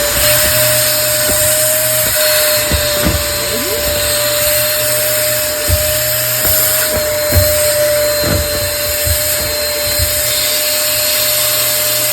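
Vacuum cleaner running steadily with a high whine and a strong hiss, its nozzle down in a clothes dryer's lint-trap slot sucking out lint, with scattered knocks of the nozzle against the housing.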